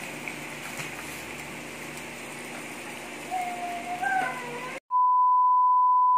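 Steady hiss of a tabletop electric samgyup grill and hot pot cooking, with broth simmering and meat sizzling, and faint voices near the end. About five seconds in this cuts off abruptly to a steady, high-pitched beep lasting about a second and a half, the loudest sound.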